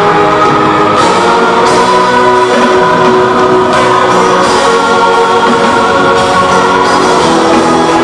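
Live band music played loud over a concert sound system, with long held chords and voices singing.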